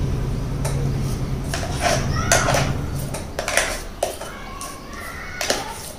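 A spoon scraping and clinking against a stainless-steel mixer-grinder jar as thick cake batter is worked out into an aluminium cake tin: a string of short scrapes and clinks.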